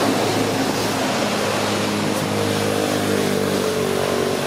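Steady rushing background noise with a low hum underneath, and faint drawn-out tones in the second half.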